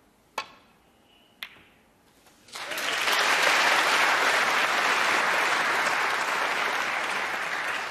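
Two sharp clicks of snooker cue and balls about a second apart, then audience applause starting about two and a half seconds in and running on steadily for a potted red.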